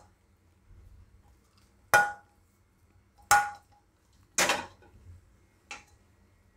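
Four separate clinks of cookware knocking against a ceramic bowl, spread over the few seconds, each with a short ring, as roasted coriander leaves are knocked out of the pan into the bowl.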